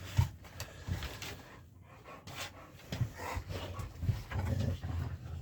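A dog panting while the dogs play, with scattered short, irregular low sounds.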